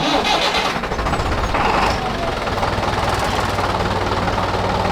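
Tractor engine running steadily, with an even low hum.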